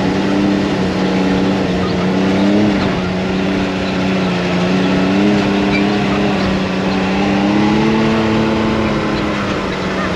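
ATV engine running steadily under way, its pitch wavering slightly with the throttle, over a constant rushing noise.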